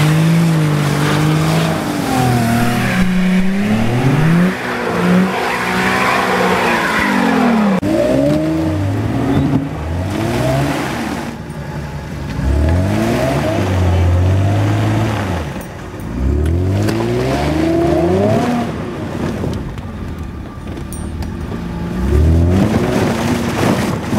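Car engines revved hard again and again as their drive wheels spin: first a Nissan 350Z stuck in snow, then a fifth-generation Chevrolet Camaro spinning a wheel in mud. Each rev rises and falls in pitch, in a long run of repeated revs.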